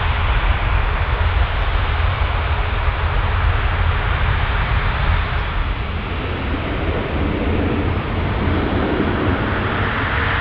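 Qantas Airbus A380's four Rolls-Royce Trent 900 turbofans running at taxi power: a steady jet rumble with a hiss over it. The sound shifts about six seconds in and grows a little louder near the end.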